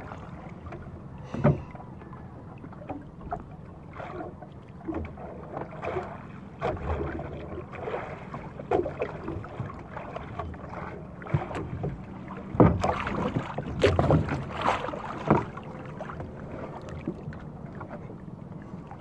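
Small outrigger canoe rocking at sea: water sloshing against the hull and wind on the microphone, with scattered knocks and thumps against the boat as a caught fish is handled in the hull. One sharp knock comes about a second and a half in, and a cluster of louder knocks falls in the middle to later part.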